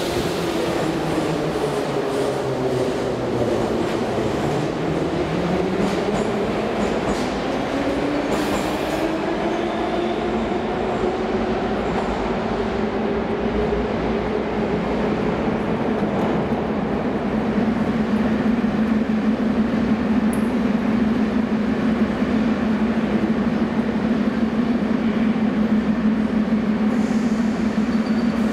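Metro train braking into the platform, its motor whine falling in pitch over the first few seconds. A rising whine follows, then a steady low hum that grows a little louder later on while a train stands at the platform with its doors open.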